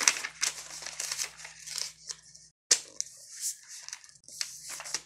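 Sheets of paper rustling and crinkling as they are handled, folded and creased by hand, in a run of short, irregular scratchy bursts.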